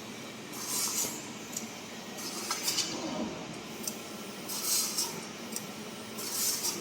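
CNC laser cutting machine running, with repeated short bursts of hiss, about every one and a half to two seconds, over a steady machine noise and a few light metallic clinks.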